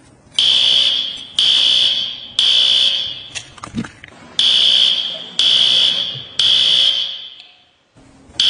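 A loud, high-pitched electronic alarm beeping about once a second, each beep fading out. There are six beeps, with one missed beat after the third.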